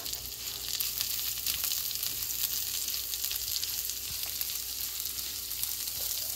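Shredded green leaves, onions and dried chillies sizzling in hot oil in a non-stick frying pan, a steady hiss full of small crackles as they are stirred and turned.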